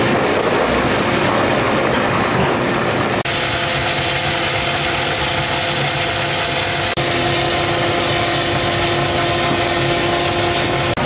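Steady machine-motor hum under the rush of pouring liquid, as water runs over soybeans and ground soy milk pours from a grinder's spout during tofu making. The sound changes abruptly about three seconds in and again about seven seconds in.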